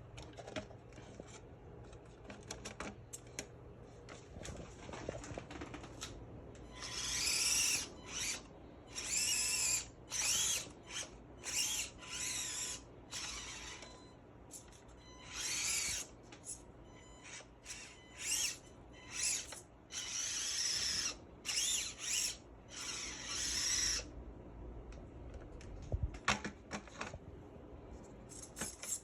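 Small electric motor and gears of an Axial 1/24 Deadbolt RC crawler whining in about a dozen short bursts, the pitch rising and falling as the throttle is worked. The bursts begin about seven seconds in and stop a few seconds before the end.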